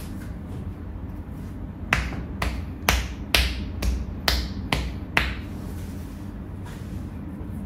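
Eight sharp hand claps or slaps in a row, about two a second, as in a percussive massage with the hands, over a steady low background hum.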